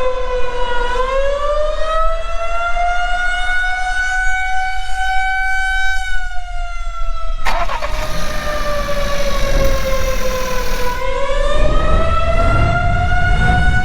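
Civil defense siren sounding a slow wail, its pitch falling, rising over several seconds, falling again and rising once more. About seven and a half seconds in, a sharp click cuts in, followed by a hiss for a few seconds; a low rumble sits under the siren near the end.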